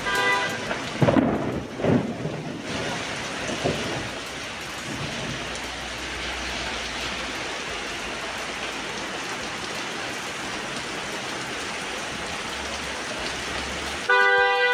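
Heavy rain falling steadily on a street, with sudden louder bursts about one and two seconds in.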